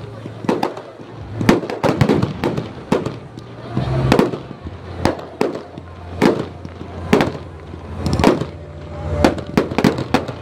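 Aerial firework shells bursting overhead in a rapid series of sharp bangs, the loudest about once a second, with quicker cracks in between.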